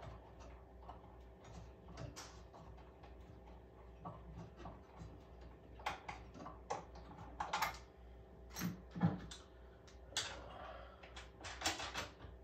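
Light clicks and taps of hands working the T-bolts that hold a photo booth's camera box, with a few louder knocks in the second half, over a faint steady hum.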